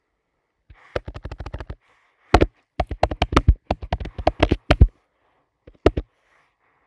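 Typing on a computer keyboard: a quick even run of keystrokes about a second in, a longer irregular run of keystrokes through the middle, and two last taps near the end.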